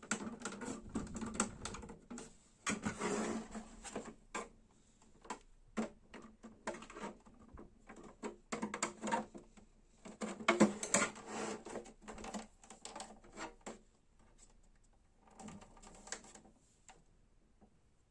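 Irregular plastic clicks and rattles from a Brother printer being worked on, coming in several clusters of quick taps with short pauses between them.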